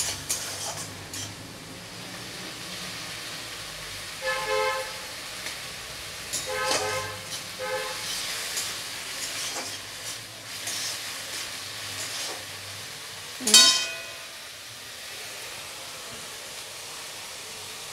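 Onion and garlic paste sizzling in an aluminium kadai as a metal spatula stirs and scrapes it, with a little water just added. A few short steady-pitched tones sound around four and seven seconds in, and a brief, louder sound rising in pitch comes about thirteen seconds in.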